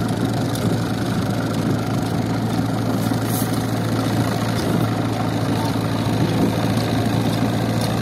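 Engine idling steadily with an even low hum.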